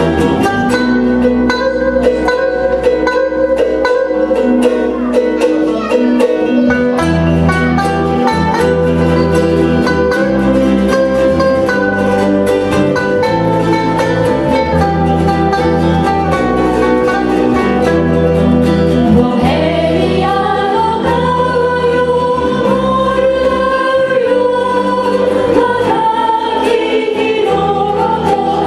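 A live ukulele ensemble strums and plucks over a moving bass line. A group of voices sings along, more prominent in the latter part.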